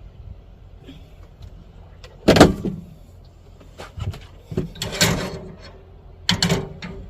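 Knocks and clatters of a portable cooker and its pan being handled while it is set up to light, with three loud clunks about two and a half, five and six and a half seconds in.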